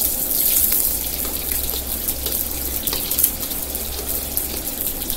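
A kitchen tap left running and kuey teow noodles deep-frying in hot oil together make a steady rushing hiss with small scattered crackles.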